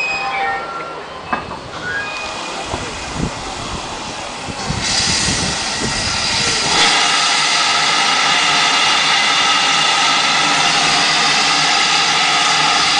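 Great Western tank engine letting off steam with a loud hiss from about five seconds in, joined about two seconds later by a long, steady steam whistle that is still sounding at the end. Before that, a few brief high wheel squeals and knocks.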